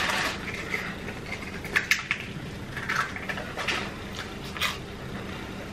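Close-miked chewing of crispy fried fast food, with sharp crunches and mouth clicks at irregular intervals, about half a dozen in a few seconds.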